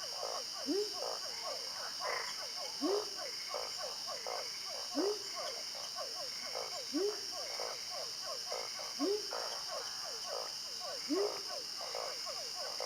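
A chorus of frogs calling, many short calls overlapping, with one deeper frog giving a rising call about every two seconds. A steady high-pitched drone runs underneath.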